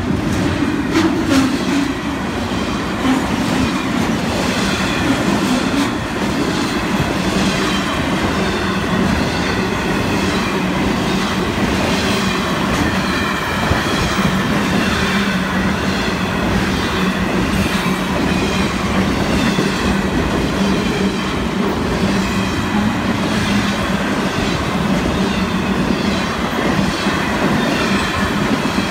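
Intermodal freight cars rolling past close by: a steady, loud rumble and clatter of steel wheels on rail, with a few sharp clicks near the start. A faint wavering high squeal from the wheels runs underneath.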